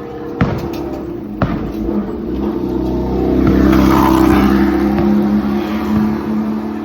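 A motor vehicle passing close by, its engine and tyre noise swelling to a peak about four seconds in and then fading. Two sharp clicks come in the first second and a half.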